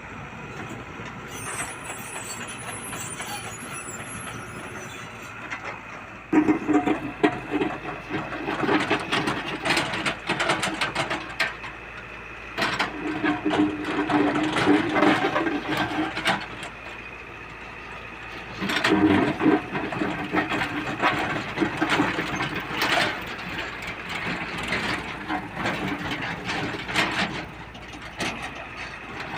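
Excavator at work: its diesel engine runs steadily, then rises under load in three spells of several seconds each, with many knocks and rattles.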